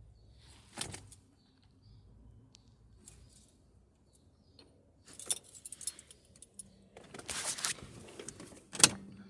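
Keys jangling on a key ring with clicks as the ignition key is turned in a car's ignition switch, in several separate bursts and ending in a sharp click.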